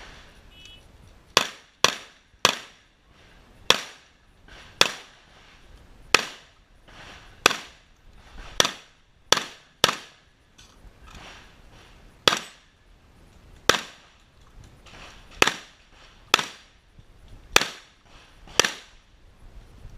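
Shotgun firing about sixteen shots at uneven spacing, from half a second to about two and a half seconds apart, each with a short ringing tail. Fainter knocks fall in the pauses between shots.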